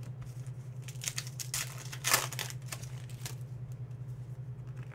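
Foil wrapper of a trading-card pack crinkling and tearing as it is ripped open, in a short cluster of crackles that peaks about two seconds in.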